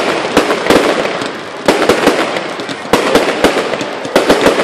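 Aerial fireworks display going off: a loud, irregular run of sharp bangs and crackles in quick succession, in volleys with short lulls between them.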